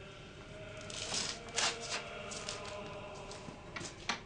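Soft rustling and clicking noises: a cluster of short rustles about a second in, then a few sharper clicks near the end.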